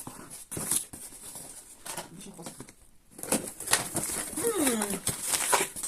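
Packaging rustling and crinkling in irregular bursts as a parcel is unwrapped by hand, busier in the second half. A short falling voice sound comes about four and a half seconds in.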